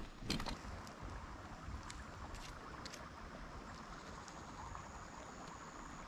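Faint, steady trickle of a shallow stream running over a stony bed, with a few light clicks in the first three seconds.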